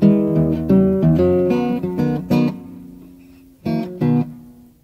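Acoustic guitar music with strummed chords. The playing eases into a fading, ringing chord a little over two seconds in, then comes two last strums near the end before it dies away.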